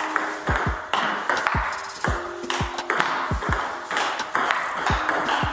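Table tennis rally: a celluloid/plastic ball clicking off the bats and bouncing on the table, many short sharp clicks in an irregular rhythm, often in quick pairs of bounce and hit. One bat is faced with Hallmark Tactics LP long-pimple rubber, played from a defensive position back from the table.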